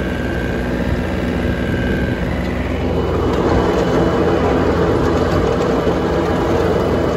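John Deere 770 compact tractor's three-cylinder diesel running steadily under load, driving the spinning blades of a King Kutter 6-ft finish mower as it cuts grass. About three seconds in, the sound grows louder and fuller.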